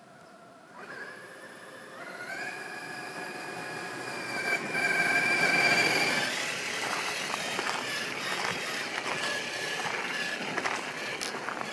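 Axial SCX6 RC crawler's electric motor and gear train whining as it drives. The whine rises and grows louder about a second in and is loudest a few seconds later. Then it mixes with the gritty crunch and small clicks of its tyres rolling over dirt and gravel.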